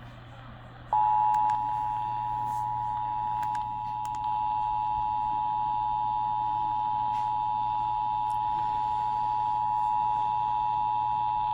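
Emergency Alert System attention signal: the steady two-tone alarm of 853 Hz and 960 Hz sounding together, beginning about a second in and held without a break, as the lead-in to a severe thunderstorm warning. A low steady hum runs underneath.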